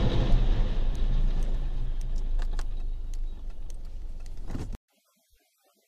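A tour bus scraping and grinding along the roadside bank, heard from a following car: a heavy rumble of engine and road noise with many sharp crunches and scrapes. It is loudest about the first second and stops abruptly near the end.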